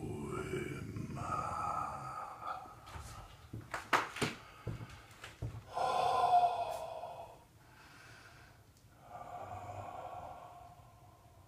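A man breathing deeply and forcefully as part of a trance-like moving meditation: a low voiced breath at the start, a few sharp clicks or snorts about three to four seconds in, then two long, hissing breaths.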